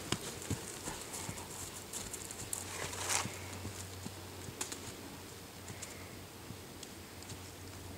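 Horse cantering on grass and soft dirt, its hoofbeats thudding and growing fainter as it moves away. A brief rushing noise about three seconds in.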